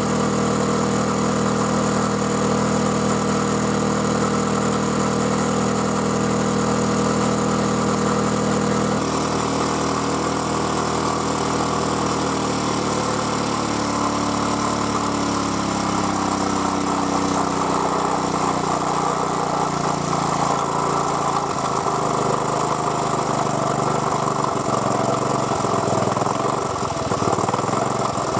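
Honda E800N generator's small OHC four-stroke engine running steadily. About a third of the way in the sound changes abruptly; the engine's pitch then sinks over a few seconds and its running becomes less even as a lever by the carburettor is worked by hand, but it keeps running.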